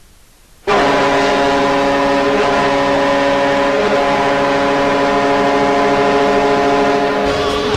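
NHL arena goal horn sounding one long, steady blast at a constant pitch, starting just under a second in and lasting about six and a half seconds. Near the end, goal-song music with electric guitar comes in.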